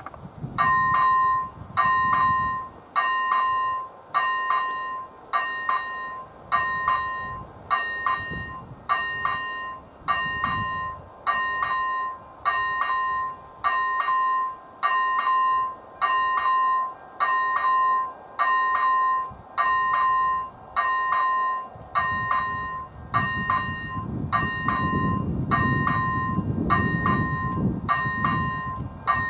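First-generation electronic level-crossing bell of an AŽD 97 warning signal sounding its warning: a bright, bell-like electronic ding about once a second, each stroke decaying before the next, signalling that a train is approaching. In the last few seconds a low rumble grows beneath it.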